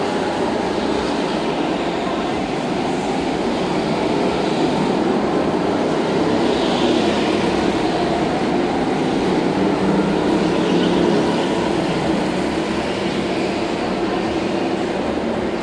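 Go-karts running laps on an indoor track: a steady mechanical drone, with a higher whine that swells now and then as karts pass. The large hall makes it echo.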